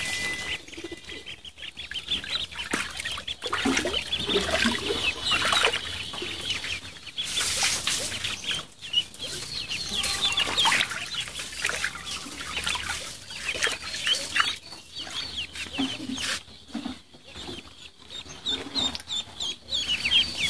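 A group of ducklings peeping continuously, many short, high, downward-sliding calls overlapping one another.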